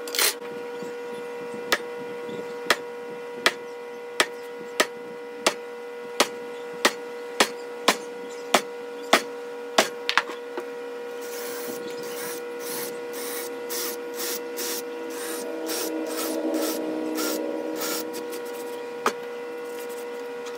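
A pen ticking off inch marks along a ruler on an MDF board: a sharp tick about every two-thirds of a second, some fourteen in all. From about halfway, a hand sweeps and rubs across the MDF in repeated strokes, with one more tick near the end. A steady electrical hum sits under it all.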